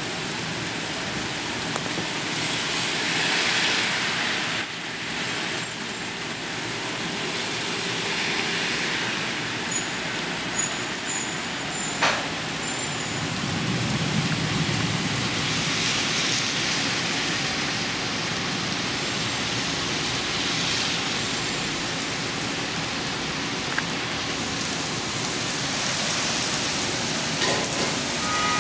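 Steady hiss of rain falling on a wet street, with the tyre swish of cars on the wet road swelling and fading several times.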